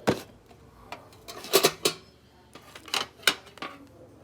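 Small hard objects being handled, clicking and clattering: a sharp knock at the start, a quick cluster of clatters about a second and a half in, and two more knocks around three seconds in.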